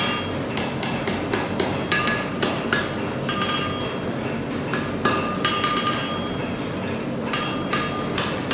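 Blacksmith's hammer striking an iron bar on the anvil while forging a poker, in quick runs of several blows with short pauses between, each blow leaving a metallic ring.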